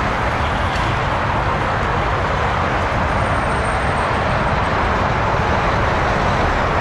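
Steady rushing airflow noise on the flight deck of an Airbus A350-1000 on final approach, an even hiss-like roar that holds constant.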